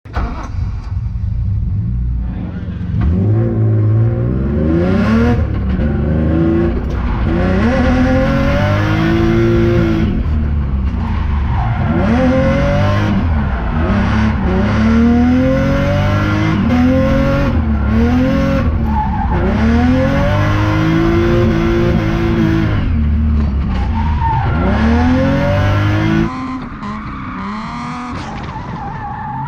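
Supercharged BMW E36 325i's inline-six revving up and down again and again through a drift, with tires squealing. It drops quieter about four seconds before the end.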